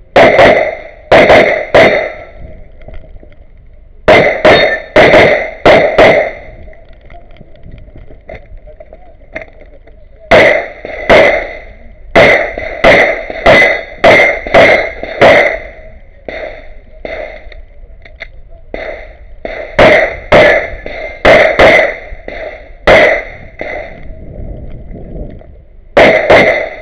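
STI TruBor pistol in 9x19 Major firing fast strings of shots, mostly in quick pairs, in several bursts a few seconds apart through an IPSC stage.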